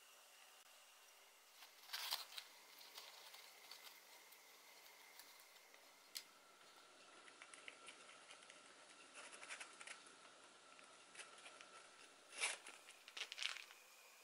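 A plastic piping bag being handled as its metal piping tip is changed: soft crinkling rustles with a few short clicks. The rustling is loudest about two seconds in and again near the end.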